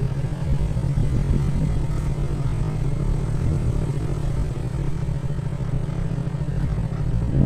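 A vehicle's engine running steadily as it travels along, a low even rumble with a haze of road and wind noise.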